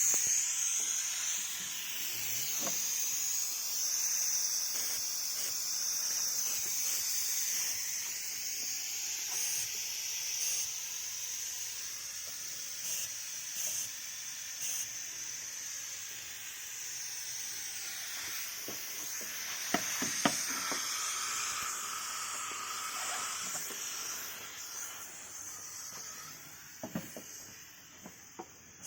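Steady hiss from a smoke leak-detection machine pushing smoke into a Range Rover V8's intake to find a vacuum leak. The hiss fades toward the end, with a few light knocks in the second half.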